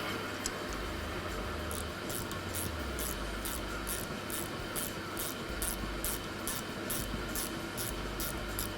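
Drill-press tooth-sharpening grinder running steadily, a stump grinder tooth being ground under a 2 kg weight. Short, sharp ticks come about three times a second from a few seconds in.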